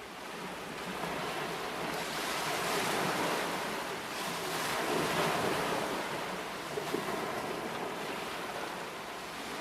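Waves washing on open harbour water, with wind buffeting the microphone; the rush swells a few seconds in and eases toward the end.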